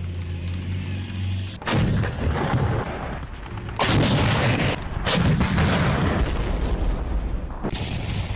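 Battle sounds: a low, steady military-vehicle engine drone, then, from under two seconds in, four sudden heavy explosions. Each blast leaves a long noisy rumble, and the loudest come about four and five seconds in.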